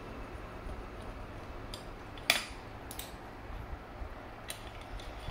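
Light metal clicks and clinks of a screwdriver, small screws and the metal air door being worked off a Predator carburetor, with one sharp clink about two seconds in and a few softer ticks after.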